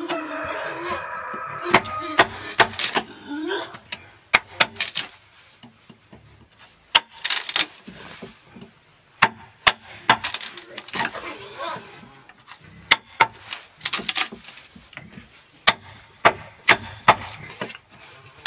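A metal blade chopping and prying into a green bamboo pole, giving irregular sharp knocks and cracks as fibres split and splinter away from a notch being cut.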